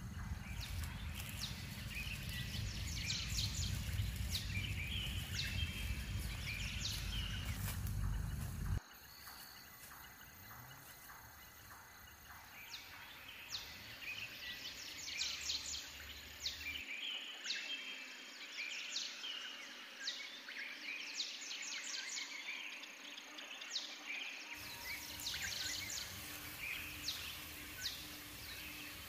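Rainforest ambience: birds chirping in repeated short clusters of high calls. A low rumbling noise underneath cuts off abruptly about nine seconds in.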